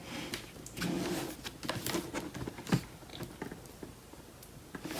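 A boxed product in a plastic cover being handled and turned in the hands: light rustling with scattered taps and clicks, busiest in the first three seconds, then quieter.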